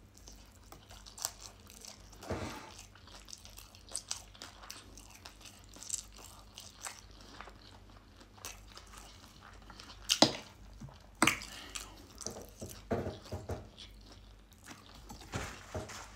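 A person chewing a mouthful of hash brown, with small wet clicks of eating, and a couple of sharp clicks about ten and eleven seconds in.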